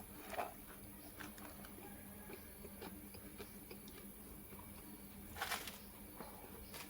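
Faint eating sounds of a person chewing: scattered small clicks and smacks, with a short louder burst about five and a half seconds in.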